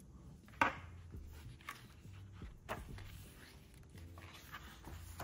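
Paper and card being handled: album inclusions such as photocards and sticker sheets picked up and set aside and a photo book pressed open, giving soft rustles and light taps, the sharpest tap about half a second in.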